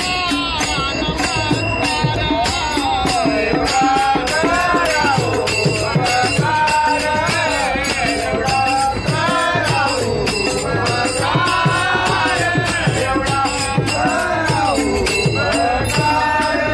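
Voices singing a devotional Hindu bhajan, kept in time by a steady beat of small brass hand cymbals (taal) and hand clapping.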